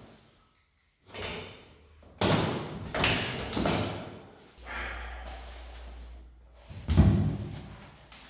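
A series of about six thumps and knocks, the loudest near the end, with a low rumble for about two seconds in the middle.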